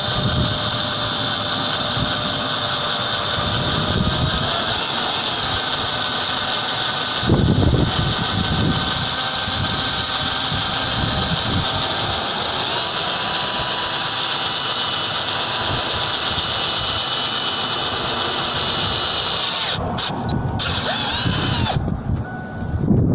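Power drill running steadily with a high whine, boring holes through plastic. It breaks off briefly about seven seconds in, then stops and starts a few times near the end.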